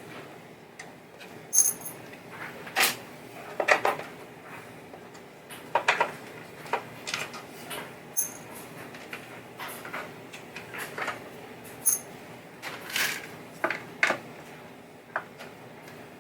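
Irregular clinks and light knocks of small metal parts and hardware being handled and set down while a pinball playfield is taken apart with a nut driver; a few of the clinks ring briefly and high.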